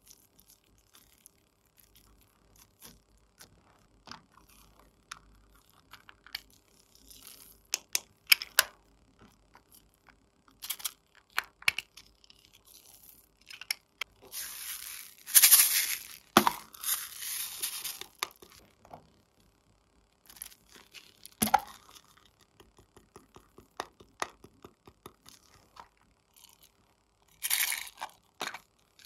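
Sticky glitter slime being stretched and handled, with soft crackles and scattered clicks of small plastic containers. About halfway there is a loud hissing rattle, and a shorter one near the end, as glitter and sequins are shaken out of a plastic tub onto the slime.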